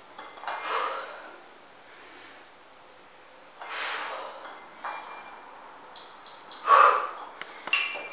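Heavy, forceful exhales, three of them a few seconds apart, from a woman working through dumbbell squat-to-overhead-press reps; the last breath is the loudest. About six seconds in a high electronic beep sounds, and a few light knocks follow near the end.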